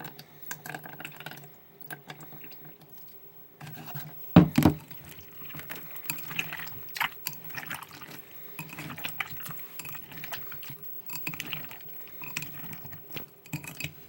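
Excess water being poured out of a mixing bowl of homemade glue-and-borax slime, with a loud sudden splash about four seconds in, amid irregular wet squelching as the slime is worked by hand.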